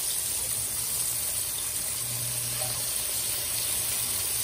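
Flour-dredged salmon steaks frying in hot oil, a steady sizzle.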